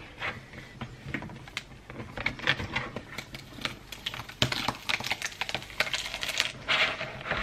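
Paper and card rustling and crackling as sheets are handled and flipped on a table, with many short, irregular clicks.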